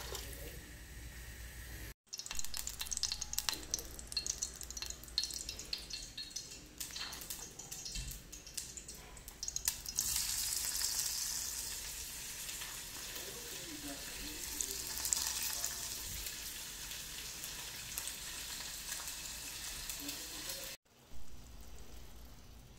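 Food frying and sizzling in a pan, with frequent clicks and scrapes of a utensil stirring it. A brief pour of water into the pan opens it.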